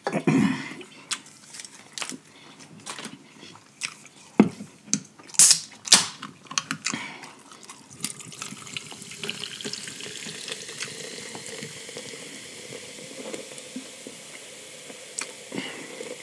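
Sharp clicks and smacks, then from about eight seconds in a drink poured from an aluminium can into a glass jar: a steady, even pour.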